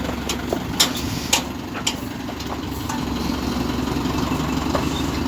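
JCB backhoe loader's diesel engine running steadily at low revs, with a few short sharp knocks in the first two seconds.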